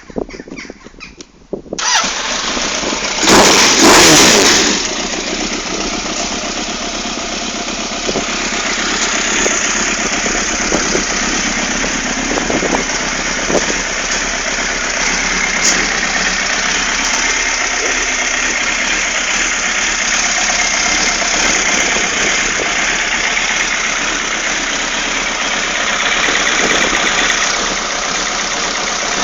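Suzuki GSX-R motorcycle's four-cylinder engine starting about two seconds in, revving briefly, then idling steadily. It runs without coughing, the engine having been running poorly before.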